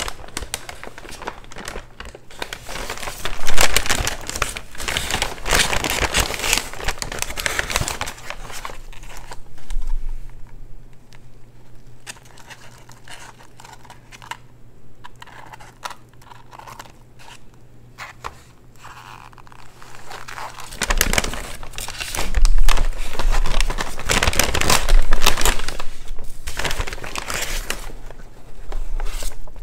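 Paper takeout wrappers and bags crinkling and rustling in bursts close to the microphone, quieter for a stretch in the middle, with a low steady hum underneath.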